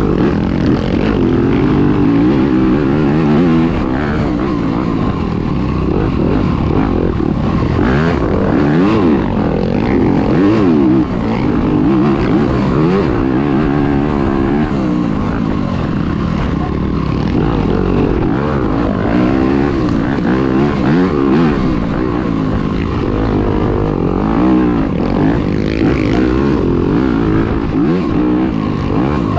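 Dirt bike engine at race pace, heard from a camera on the bike or rider, its revs rising and falling again and again as the rider works the throttle and shifts.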